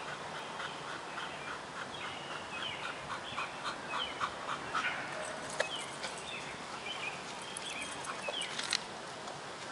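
A dog yapping excitedly in quick, high barks, about three a second for the first few seconds, then quieter, with a couple of sharp clicks later as it jumps at a hanging inner tube.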